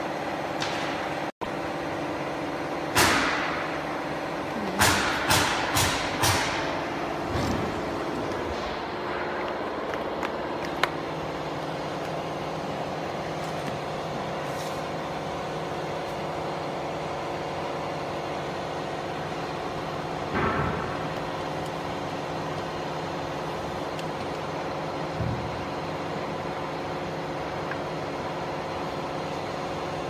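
Steady hum of workshop machinery with a few held tones, broken by several short, loud, sharp noises, most of them between about three and seven seconds in and a few more later.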